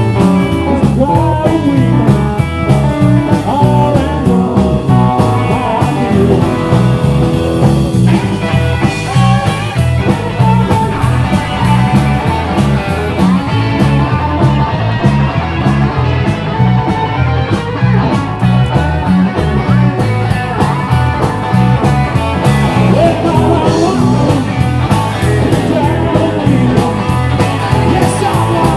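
Live band playing upbeat rock and roll through PA speakers: electric guitar and bass guitar over a steady dance beat.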